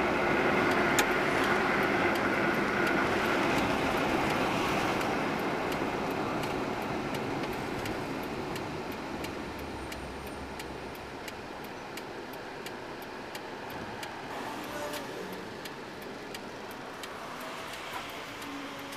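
Road and engine noise heard from inside a car. It eases off over the first ten seconds or so as the car slows to a stop in traffic, then stays low and steady with light scattered clicks.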